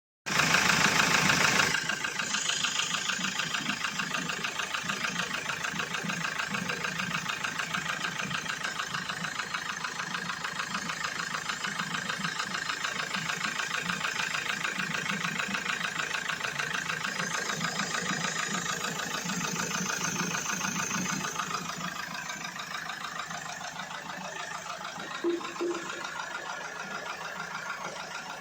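Mahindra XUV500's 2.2 L mHawk four-cylinder diesel, freshly overhauled, idling with a fast, even diesel clatter. It is louder for the first second and a half, then runs steadily, settling a little quieter about three quarters of the way through.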